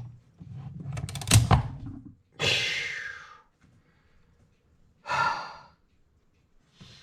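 Clock mainspring jumping into place: a few rattling clicks, then one sharp metallic snap about a second and a half in. Two breathy sighs follow.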